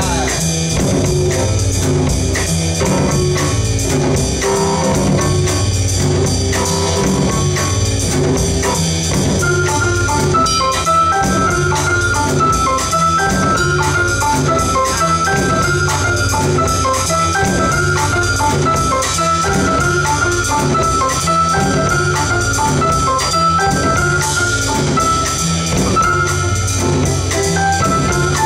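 Live jazz piano trio playing: upright piano, double bass and drum kit. From about ten seconds in, the piano plays a run of short, repeated high notes over the bass line and drums.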